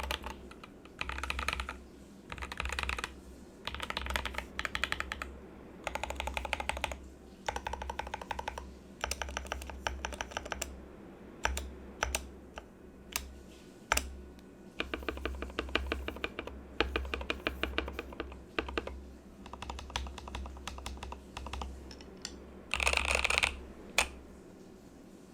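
Rama Works U80 mechanical keyboard with Raed v2.1 switches: modifier keys pressed over and over in quick runs of clacks with short pauses between them. The loudest run comes near the end, followed by a single sharp keystroke.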